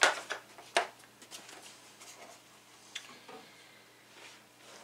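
Plastic latches of a hard-shell scan-tool carrying case snapping open: two sharp clicks within the first second, then a few lighter clicks and rustles as the lid is lifted.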